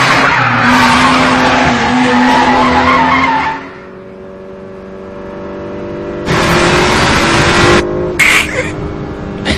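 Sports cars racing: tyres squealing with engine noise at first, then the engine note heard alone and slowly building, then another loud rush of tyre and engine noise about six seconds in.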